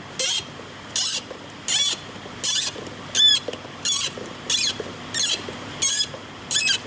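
A high-pitched squeak repeating evenly, ten times, about every 0.7 seconds, each with a wavering pitch, over a steady low background hum.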